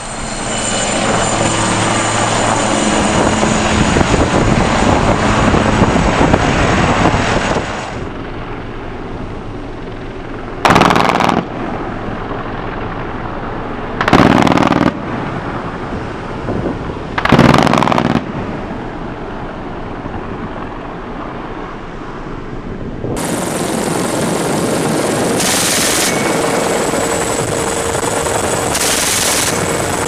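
Helicopter engine and rotor noise with wind on the microphone, dropping about eight seconds in and rising again near the end. In the middle, three short bursts of machine-gun fire a few seconds apart.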